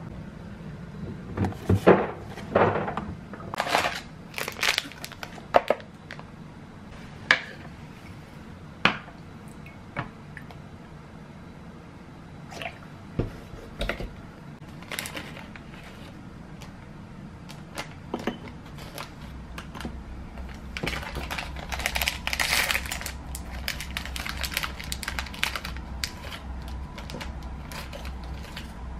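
Sharp knocks and clicks in the first several seconds, then plastic snack wrappers crinkling as they are opened by hand in the second half.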